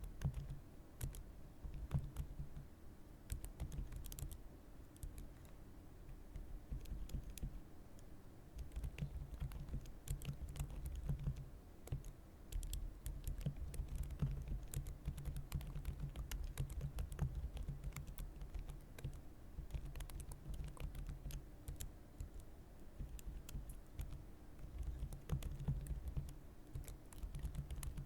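Continuous typing on a computer keyboard: rapid key clicks, each with a low thud under it, in runs broken by short lulls.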